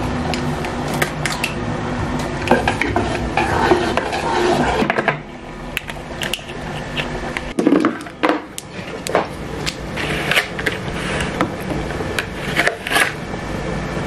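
Clicks, taps and knocks of a plastic baby bottle and its parts being handled on a table while formula is made up, coming irregularly throughout.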